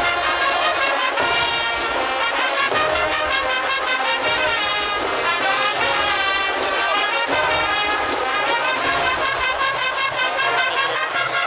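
A Spanish Holy Week agrupación musical, a brass-and-percussion band, playing a processional march: trumpets and trombones carry the melody over drums keeping a steady beat.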